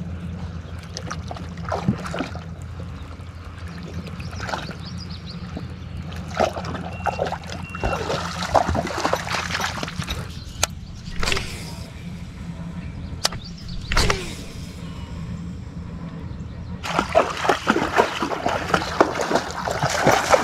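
A dog splashing and sloshing through shallow river water, with scattered knocks and a busier burst of splashing in the last few seconds, over a steady low hum.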